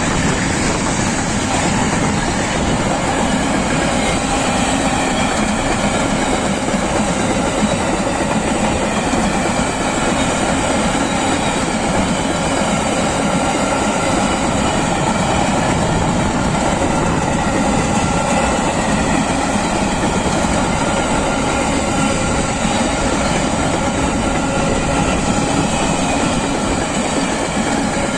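Freight train wagons rolling past close by: a loud, steady rumble and clatter of steel wheels on the rails.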